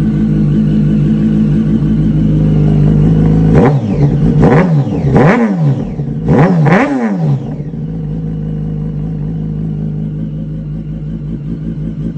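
Yamaha sportbike inline-four engine through a Toce aftermarket exhaust, idling and then blipped four times in quick succession about four to seven seconds in, each rev rising sharply and falling back, before settling back to idle.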